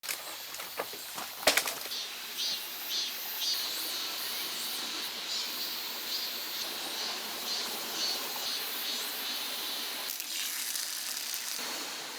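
Mountain stream running, a steady rushing noise, with repeated short high-pitched chirps over it and a few sharp clicks about a second and a half in.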